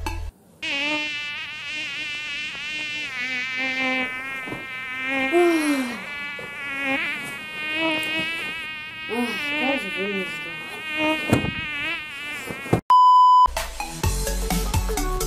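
A high, buzzing whine that wavers up and down in pitch runs for about twelve seconds. It is cut off by a short, steady electronic beep, and music starts about a second later.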